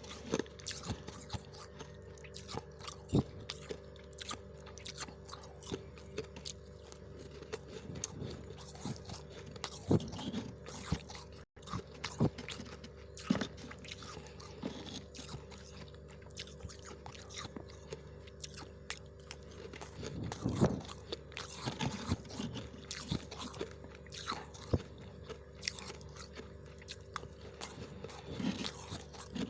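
Freezer frost being bitten and chewed close to the microphone, with irregular crisp crunches of varying loudness over a steady low hum.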